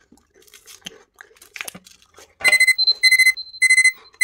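Countdown timer alarm going off, beeping at zero to signal the end of the timed challenge. It starts about two and a half seconds in, with loud, high double-tone beeps repeating in short groups about every 0.6 seconds.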